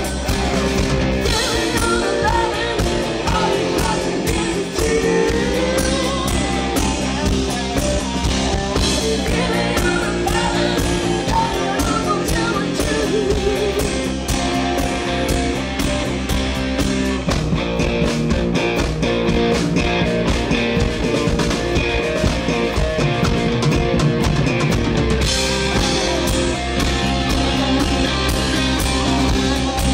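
Live rock band playing: electric bass, electric guitar and drum kit, heard steadily and loud.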